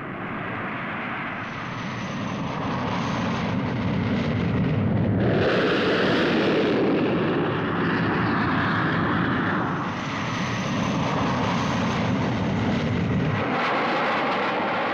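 Jet aircraft engine noise: a loud, steady rush that shifts in tone several times, brightest about five seconds in, with the deepest part dropping away near the end.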